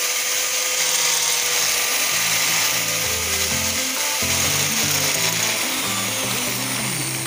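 Electric hand grinder's brushed motor running steadily with a high whine, its commutator repaired so that it no longer sparks heavily; the whine sags slightly in pitch near the end.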